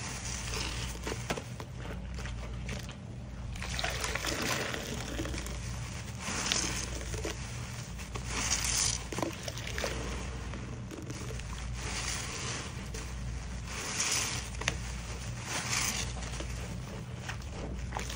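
Soapy horse sponges being squeezed over a basin of sudsy water: wet squelching as foamy water gushes out and splashes back into the basin, in repeated squeezes about every two seconds, over a steady low hum.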